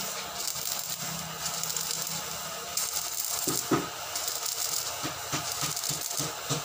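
Stick welding arc crackling and sizzling steadily as an electrode burns against the workpiece, with a few sharper pops from about halfway through.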